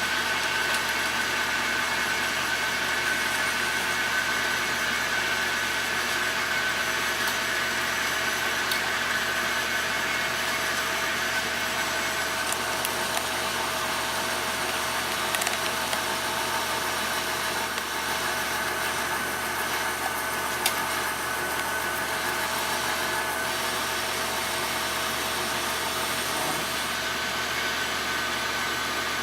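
1940s South Bend metal lathe running steadily under power, a continuous machine noise with a steady whine, as it takes a cut on a part.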